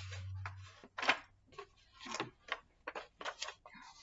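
A page of a large paperback picture book being turned: paper rustling and crackling in a string of short scrapes and crinkles, with a low hum in the first second.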